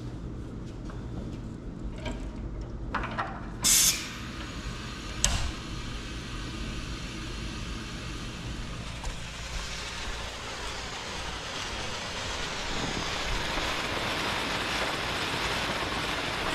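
Water from a gravity-drained electric water heater running out of the end of a garden hose and splashing onto concrete, a steady hiss that builds over the second half. Before that come a few clicks and one short, loud hiss from handling the hose and drain, over a low steady hum.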